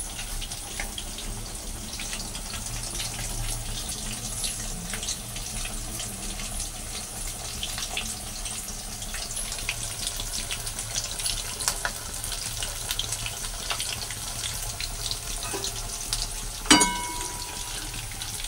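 Potato-stuffed wheat-dough rolls deep-frying in hot oil in a kadhai: a steady sizzle with fine crackling throughout. Near the end, a single metal clink with a short ring as the slotted spoon strikes the pan.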